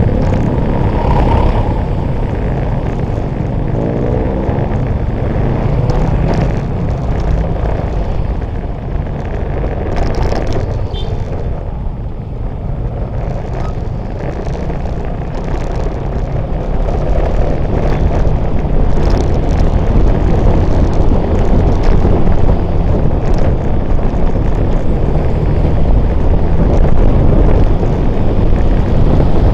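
Motorbike ride: a steady low rumble of wind buffeting the microphone mixed with engine and traffic noise. It grows louder over the second half as the bike picks up speed on an open road.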